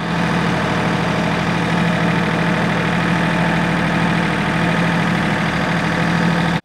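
Kioti compact tractor's diesel engine running at a steady speed, loud and unchanging in pitch, then cutting off abruptly at the end.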